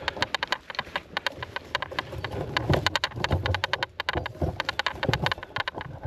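Footsteps crunching through dry fallen leaves on a forest floor: a dense, rapid crackle, with the dull thud of several footfalls about halfway through.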